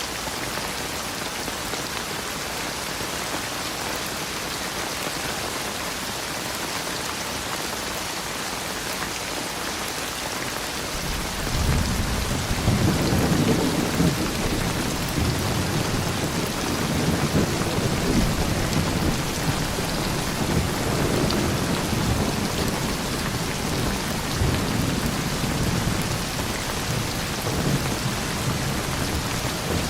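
Steady rain falling, with a long roll of thunder rumbling in about a third of the way through and rolling on, swelling and easing, over the rain.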